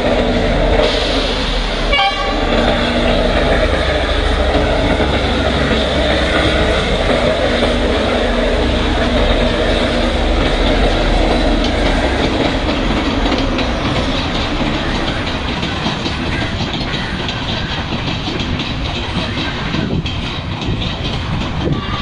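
CRRC-built Class S10 diesel multiple unit running on the rails: steady engine hum and wheel-on-rail noise, with a short sharp click about two seconds in.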